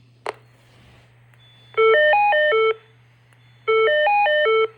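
Fire alarm voice-evacuation speaker playing its electronic alert signal tone: two short runs of stepped notes, each about a second long, that climb and then fall back in pitch, about two seconds apart. This tone signals that an emergency has been reported in the building. A short click comes just before the first run.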